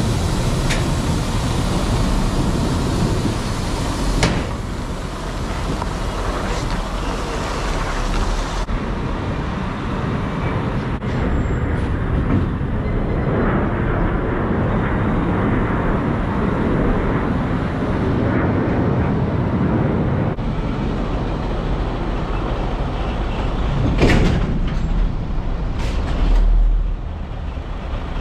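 Semi-truck tractor running, with a steady noisy rush that includes wind on the microphone. Two short, sharp sounds come near the end.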